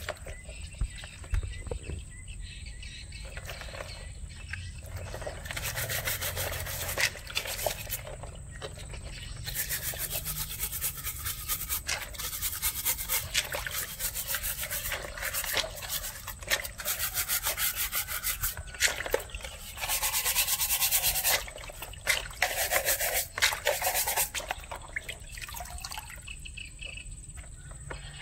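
Stiff plastic bristle brush scrubbing raw crab shells in a basin of water, in stretches of rapid rasping strokes broken by short pauses.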